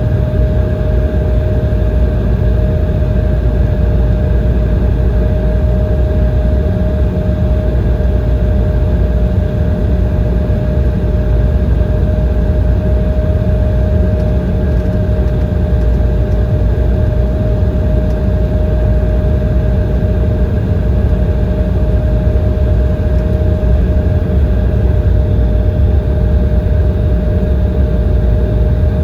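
Steady cabin noise inside an Embraer ERJ-170 airliner: a deep rumble with a constant whine from its General Electric CF34-8E turbofan engines.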